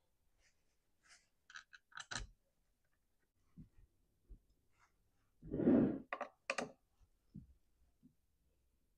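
Scattered plastic clicks and taps as the recoil starter housing of a Stihl MS 362 chainsaw is fitted back on and its screws are driven in with a hand screwdriver, with one louder knock about five and a half seconds in.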